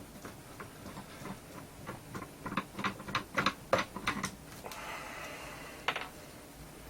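Irregular small clicks and taps of a plastic speaker casing and a screwdriver being handled during disassembly, thickest in the middle, with a short scraping sound about five seconds in.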